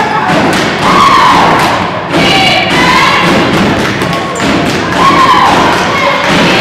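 A group of voices chanting a cheer in unison, in short phrases about a second apart, with thumps underneath.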